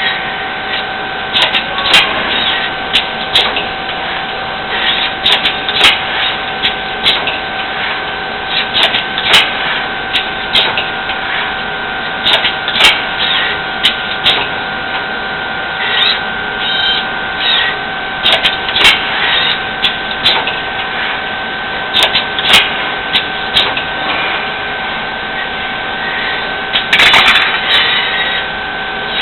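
A CNC tube-bending machine and robot at work: a steady whine under many irregular clicks and clanks, with a louder burst of noise near the end.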